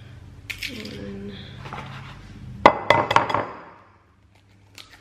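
An egg knocked on the rim of a ceramic bowl and broken open: one sharp knock about two and a half seconds in, then a quick run of shell cracks and clinks.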